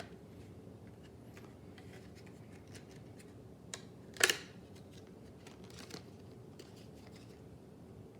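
Light clicks and small plastic and metal scrapes from handling computer parts while preparing to fit a processor, with one louder click and short scrape about four seconds in.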